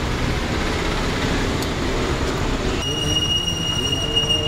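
A train running on rails: a steady rumble, joined about three seconds in by a high, steady wheel squeal.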